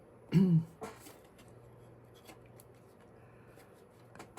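Hands handling a small flocked silicone-rubber squishy toy: faint clicks and rustles, with one short, loud pitched sound that bends in pitch about half a second in, followed by a click.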